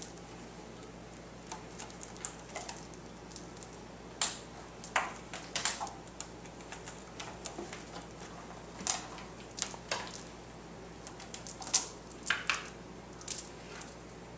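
Bengal cats' claws scratching and catching on a cat tree's sisal-wrapped posts and plush platforms as they climb and bat at toy mice: a run of irregular scratches and taps, a few of them louder.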